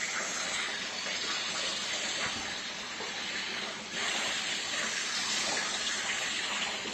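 Water coolant flowing and splashing steadily through a homemade CNC chip conveyor, briefly quieter just before four seconds in.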